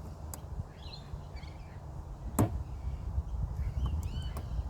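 Faint bird-like chirps over a low steady hum, with one sharp click about halfway through.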